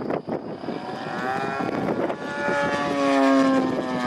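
CAP 232 aerobatic plane flying overhead, its propeller engine note bending up and down in pitch as it manoeuvres and peaking about three seconds in. Wind buffets the microphone at the start.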